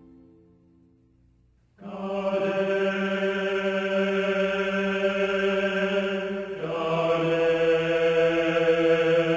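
Background music: a piece fades out to near silence, then about two seconds in a choir starts a slow chant on long held notes, moving to a new chord about six and a half seconds in.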